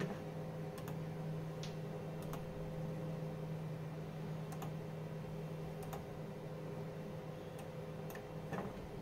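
A few scattered clicks and keystrokes on a laptop as a setting is entered, heard over a steady low hum.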